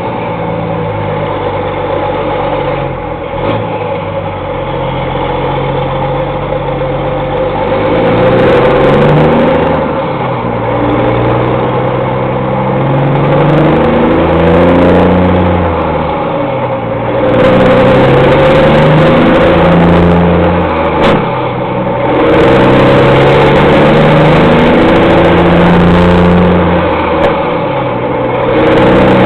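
Loud Peterbilt truck diesel engine through straight pipes, pulling hard with the revs climbing, then dropping back at each gearshift of its 18-speed transmission, several times over.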